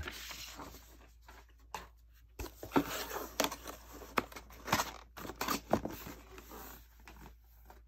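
Paper and cardboard rustling and scraping in irregular short bursts as hands handle a paper packing slip and fold shut the flap of a white cardboard mailer box.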